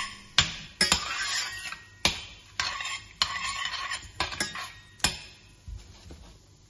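A metal ladle stirring whole spices in oil in a stainless steel saucepan: scraping around the pan with sharp clinks against its side, about nine in all, growing fainter near the end.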